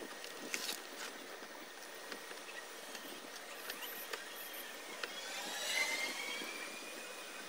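Light plastic knocks and clicks from a flat-screen LED TV's housing being handled and turned over on a table, over a steady faint hiss. A brief high squeak swells and fades about six seconds in.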